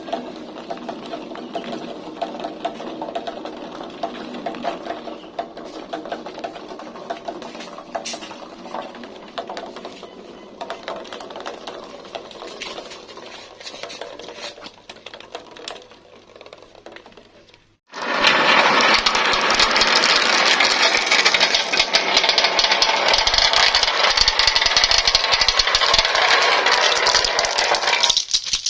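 Marbles rolling and clattering down a plastic marble-run track, a steady rapid rattle. About 18 seconds in, a much louder, dense clatter starts suddenly and keeps on.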